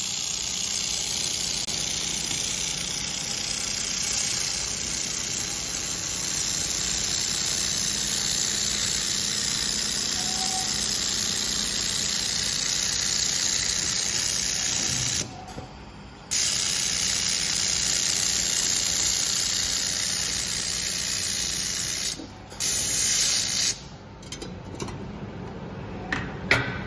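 Hand-held laser welding machine welding a steel pipe elbow joint: a steady hiss from the welding head, broken briefly about 15 s in and again about 22 s in, and stopping about 24 s in. A short metal clink follows near the end.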